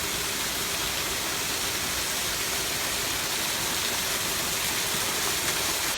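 Water pouring over a spillway waterfall: a steady, even rush of falling water.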